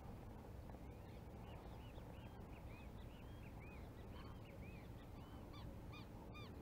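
Faint calls of a flock of birds: many short notes that rise and fall, repeating and overlapping from about a second in, a little clearer near the end.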